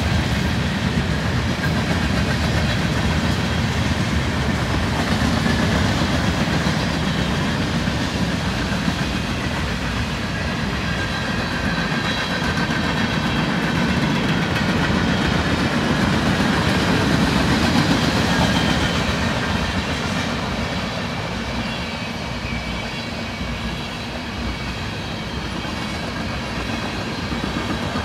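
Freight cars of a long mixed freight train rolling steadily past, a continuous rumble of steel wheels on the rails. The passing cars are covered hoppers, boxcars and tank cars.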